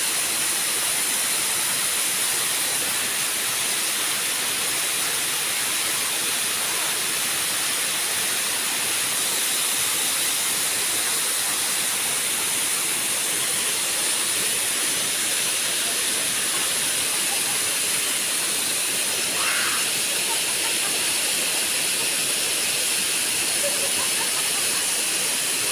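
Waterfall: a steady, unbroken hiss of falling and rushing water.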